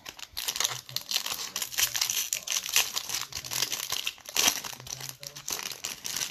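Foil wrapper of a Topps baseball card pack being torn open and crinkled by hand: a dense, continuous crackling.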